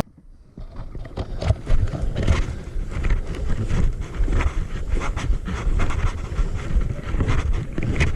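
Wind buffeting a body-worn microphone outdoors, with irregular rustling, scuffing and steps as the wearer moves.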